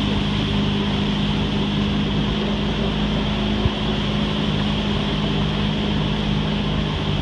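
A small boat's motor running steadily as the boat cruises along, an even drone with no change in speed. A single brief knock about three and a half seconds in.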